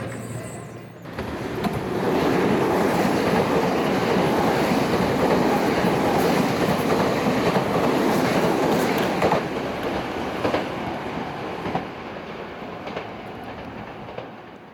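A Meitetsu express train passing through the station at speed: a loud rushing rumble of wheels and running gear that builds about a second in, holds, and fades away over the last few seconds, with a few sharp wheel clacks as it trails off.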